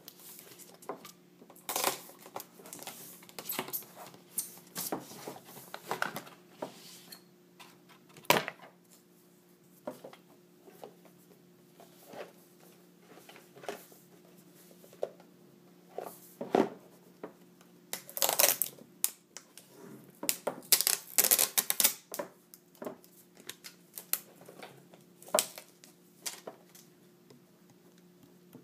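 Hands handling and opening a GoPro Hero 3 retail box of cardboard and clear plastic: scattered clicks, taps and crackles, with two denser bursts of crackling about two-thirds of the way through. A faint steady hum runs underneath.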